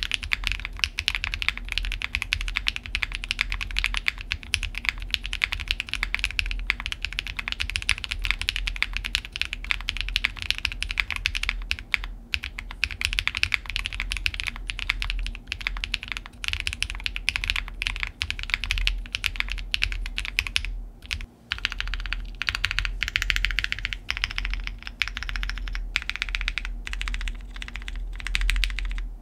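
Fast, continuous typing on a Space65 R3 gasket-mount 65% custom mechanical keyboard fitted with stock, unlubed KNC Keys Red Jacket switches: a dense run of crisp keystroke clacks with a brief pause about twenty-one seconds in.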